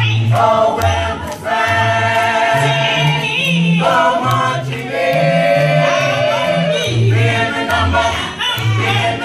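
Mixed group of men's and women's voices singing a gospel song a cappella in close harmony. Held chords ride over a deep bass part whose notes move every half second or so.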